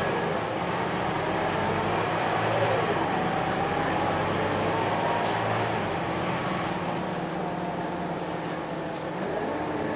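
Single-deck city bus driving, heard from inside the passenger cabin: a steady engine and drivetrain drone with a whine that drifts in pitch, over road noise. The sound grows a little louder in the first few seconds and eases off in the second half.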